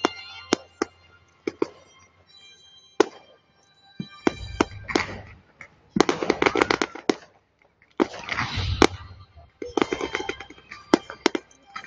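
Fireworks display: sharp bangs of bursting shells with fast clusters of crackling, densest about halfway through and again a couple of seconds later, some bursts carrying a low rumble.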